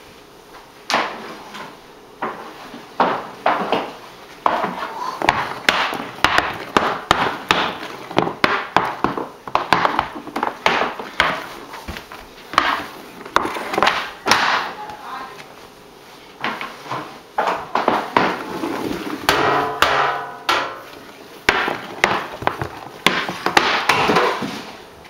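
Hockey stick blade and puck clacking on a hardwood floor during indoor stickhandling: a long run of sharp, irregular wooden knocks and slaps, several a second in the busiest stretches.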